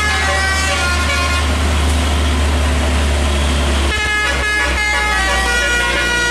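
Bus telolet horn, a multi-tone air horn, playing a tune of changing notes over a low engine rumble. The notes give way to a noisier stretch and come back clearly about four seconds in.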